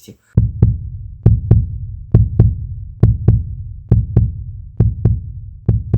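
Heartbeat sound effect: seven double lub-dub thumps, evenly paced at a little over one beat per second.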